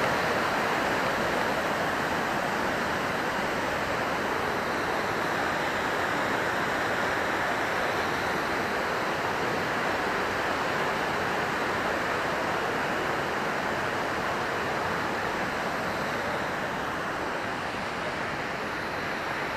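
Steady rush of fast-flowing water, as of a mountain torrent or waterfall, growing slightly fainter toward the end.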